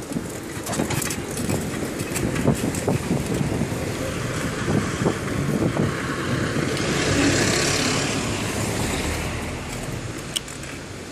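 City street traffic heard from a moving bicycle: a steady rush of cars and road noise with frequent small knocks and rattles. A louder rush of noise swells and fades about six to nine seconds in.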